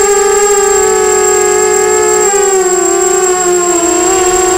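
Electric motors and propellers of a 250-size FPV racing quadcopter whining, heard from the camera on the drone itself. The pitch wavers with throttle, dipping briefly about two seconds in and wobbling near the end, over a steady high-pitched whistle.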